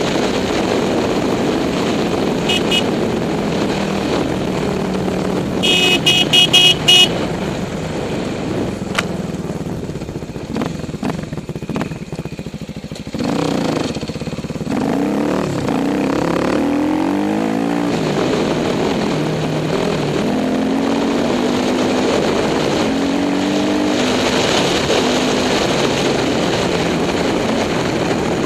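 Kawasaki dirt bike engine running under way on a gravel trail, its pitch rising and falling with the throttle. It eases off about halfway through and climbs again in several rising sweeps as the gears go up. A few short, loud, high beeps sound about six seconds in.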